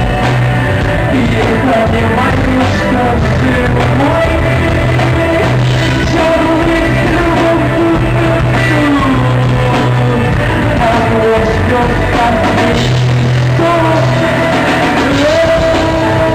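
Live rock band playing with a sung vocal line over electric guitars, bass and drums, loud and continuous.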